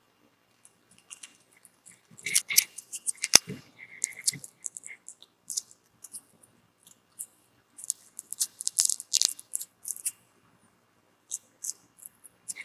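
Tip of a small carving knife cutting and prying into a raw red radish: crisp, irregular clicks and crunches of the firm flesh as pieces are scooped out. The clicks come in two bursts a few seconds apart, with one sharper snap in the first.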